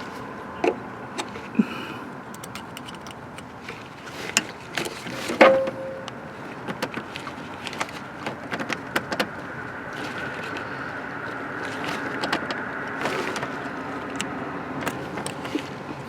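Scattered light clicks and taps from a test light's clip and probe being handled on ignition module wiring connectors, over a steady background hum. There is one short squeak about five seconds in.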